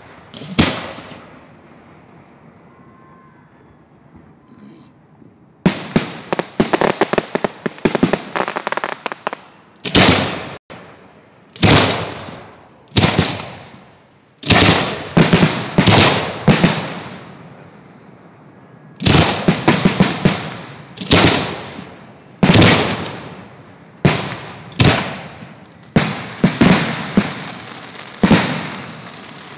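Aerial fireworks shells bursting overhead. About six seconds in comes a dense run of rapid crackling pops. Then come loud single bangs every second or so, each trailing off over a second.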